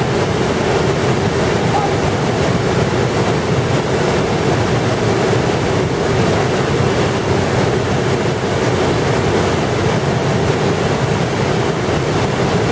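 Whitewater pouring over a rock ledge, heard close up: a loud, steady rush of water.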